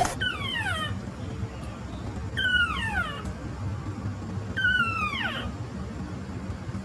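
A cat meowing three times, each a drawn-out call that falls in pitch, about two seconds apart.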